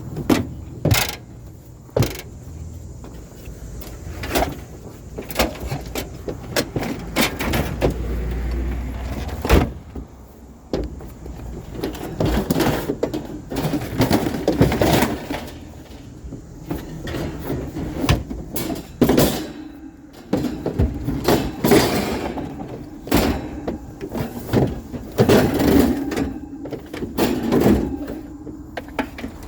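A run of irregular knocks, bangs and clattering scrapes, like hard items being handled and shifted around a car.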